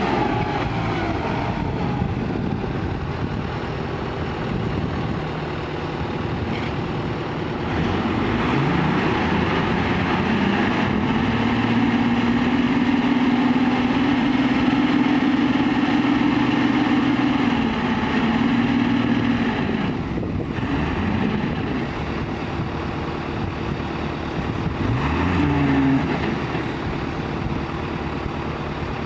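Ten-wheel dump truck's diesel engine running while its hydraulic hoist tips the loaded bed. The engine revs up about eight seconds in and holds a steady higher pitch for several seconds, drops back, then rises briefly again near the end.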